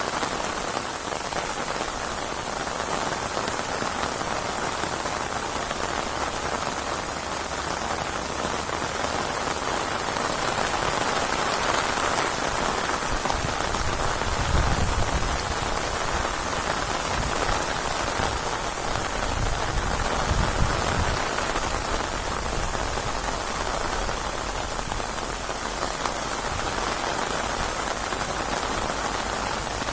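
Steady, heavy rain falling in a constant hiss. There are two brief low rumbles around the middle.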